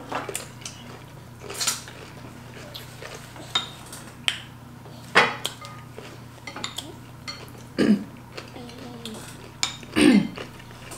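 Cutlery clinking and scraping on plates and bowls at a family meal, in scattered sharp taps, a few of them louder.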